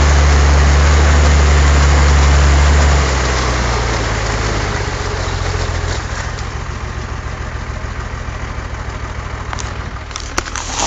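Nissan Patrol's 3.3-litre turbodiesel engine held at a steady raised speed, then dropping back in two steps, about three and six seconds in, to a pulsing diesel idle. A few sharp clicks near the end.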